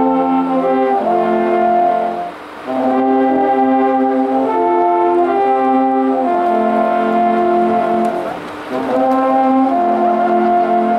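An ensemble of about ten alphorns playing a slow piece in sustained chords that change roughly every second. The music breaks briefly between phrases about two and a half seconds in and again about eight and a half seconds in.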